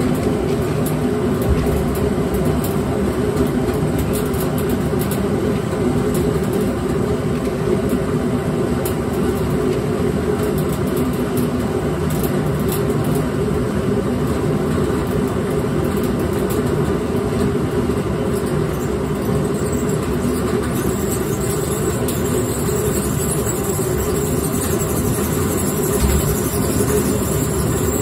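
Grain mill running steadily, crushing malted barley as it feeds down from the hopper, with a single low knock near the end.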